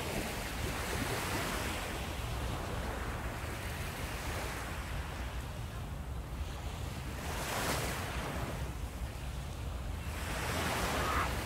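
Surf washing onto a sandy beach, with wind rumbling on the microphone. The wash swells twice, about two-thirds of the way through and again near the end.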